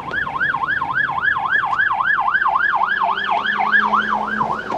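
Emergency vehicle siren on a fast yelp, its pitch rising and falling about four times a second, heard from inside a car. It grows louder over the first seconds and eases near the end.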